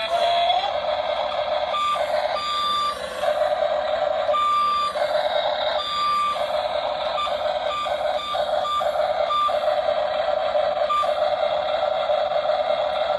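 Electric whine of a radio-controlled excavator's motors. It breaks off and restarts many times as the controls are worked, and a higher steady tone comes in briefly where the lower whine drops.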